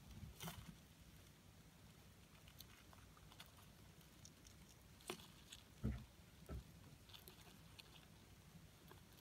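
Faint scattered ticks and scratches from a colony of dubia cockroaches crawling over and feeding on an orange. A low thump comes about six seconds in, with a smaller one half a second later.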